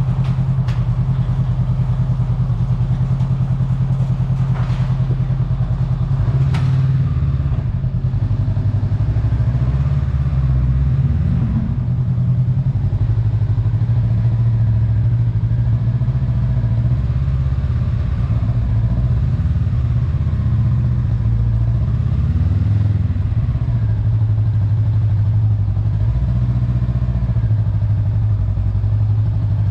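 Honda Rebel 500's parallel-twin engine running at low speed, a steady low drone that shifts slightly in pitch as the throttle changes. A few sharp clicks or knocks come in the first seven seconds.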